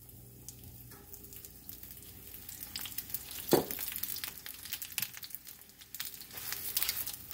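Roti frying in a nonstick skillet: the fat sizzles with many small crackles, growing busier after more fat is poured over from a small glass jar. One louder knock comes about three and a half seconds in.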